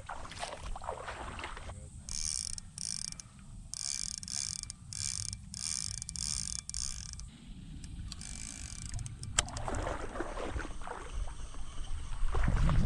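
Spinning fishing reel whirring in a string of about nine short spurts, each roughly half a second long, over a low rumble of wind and handling noise.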